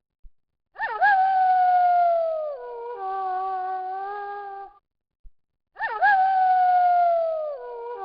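A wolf howling, the same howl heard twice about five seconds apart with a short silence between. Each howl jumps up sharply, slides slowly down in pitch, then settles into a steadier, lower note.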